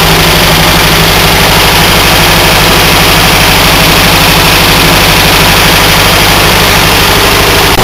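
Morris 1100's four-cylinder BMC A-series engine running steadily and loud while powering a turret lathe, its note changing abruptly near the end.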